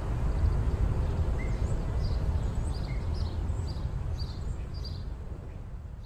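Outdoor ambience: a steady low rumble with birds chirping from about a second and a half in, the whole fading down toward the end.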